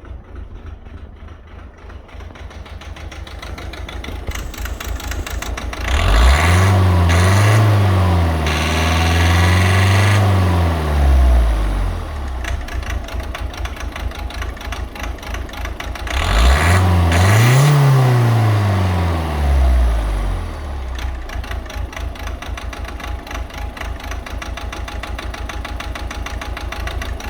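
Volvo C30 1.6 diesel engine idling with a fast, regular low knock, revved up and back down twice, the first rev held for several seconds. The knocking is the sign of faulty Siemens injectors.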